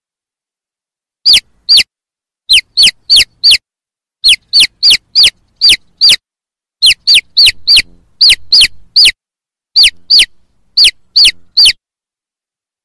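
A chicken chick peeping: about two dozen loud, high, short peeps, each sliding down in pitch, given in quick runs of two to five.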